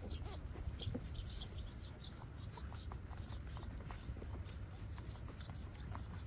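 Eight-day-old puppies nursing, with many short high squeaks and small suckling clicks scattered irregularly throughout.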